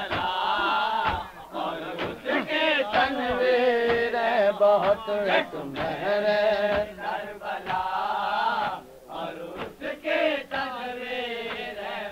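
Men's voices chanting an Urdu salam (a Shia devotional elegy) together in a sustained, drawn-out melody, on an old, dull-sounding tape recording.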